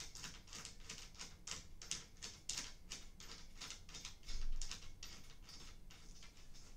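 A bolt being turned by hand into a metal bed-frame support rail: a quick run of light, scratchy clicks, about four a second, that stops shortly before the end. There is a dull bump a little after four seconds in.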